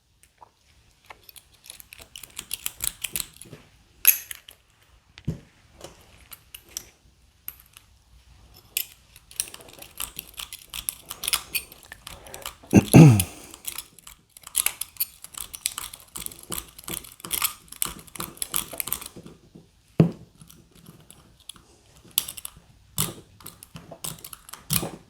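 Lock pick raking the pin tumblers of a Master padlock under a tension tool: rapid, scratchy metallic clicking in bursts, with a louder clunk about halfway through.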